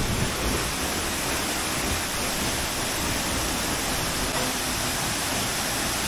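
Benang Stokel's twin waterfalls pouring into their pool: a steady, even rushing hiss with no breaks.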